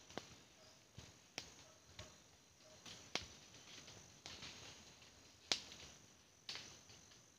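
Faint, sharp clicks and snaps at irregular intervals, roughly one a second, with the loudest about two-thirds of the way in.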